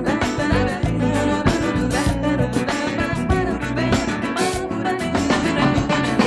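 Background music with a steady beat, a Latin-style band arrangement.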